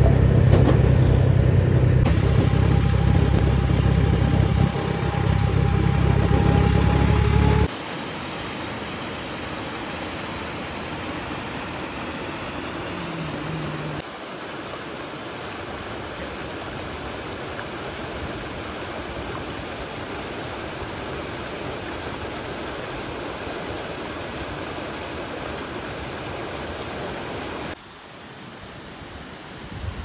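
A small farm tractor's engine running steadily, heard from the trailer it is towing, for about the first eight seconds, then cutting off abruptly. After that, the steady rushing of a waterfall.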